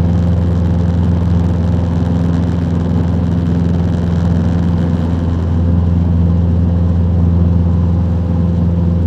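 Cessna 150's four-cylinder piston engine and propeller droning steadily in level flight.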